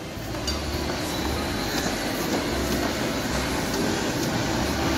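Train running: a steady rumble and rattle of rail cars, a little louder from about half a second in.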